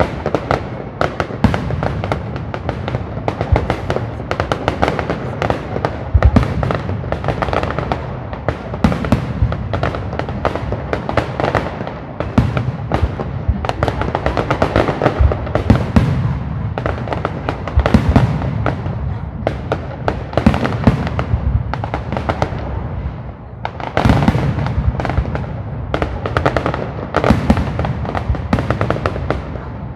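Aerial fireworks display: shells bursting in a dense, rapid barrage, many bangs a second with crackling, the loudest bangs about six, sixteen and eighteen seconds in and a heavier flurry starting about twenty-four seconds in.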